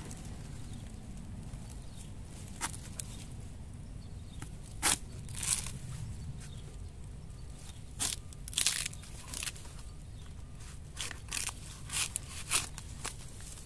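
Irregular sharp crunches and crackles, about ten in all and bunched in the second half, as a knife works through dry bamboo leaves and sheaths and cuts into a young bamboo shoot.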